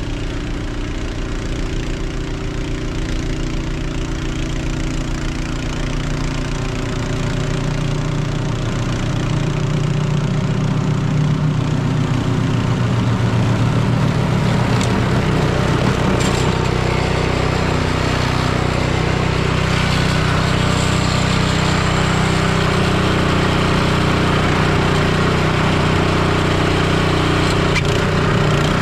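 An engine running steadily, getting a little louder over the first ten seconds or so.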